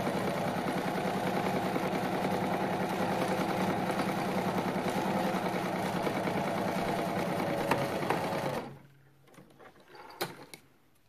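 Pfaff electric sewing machine running steadily as it sews a straight-stitch seam, then stopping abruptly about nine seconds in. A few faint clicks follow.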